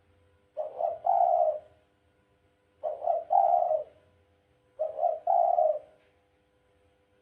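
Dove cooing three times, about two seconds apart; each call is a short note followed by a longer, lower coo.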